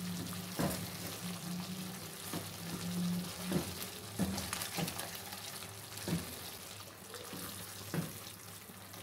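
Thick tomato pizza sauce sizzling in a frying pan as a spatula stirs it, with short scrapes of the spatula against the pan about once a second. The sauce is reduced and thickening, nearly done.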